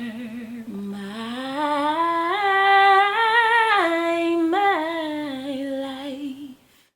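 Solo voice singing a wordless, unaccompanied gospel melody, climbing to a held high note about three seconds in, then falling away and stopping just before the end.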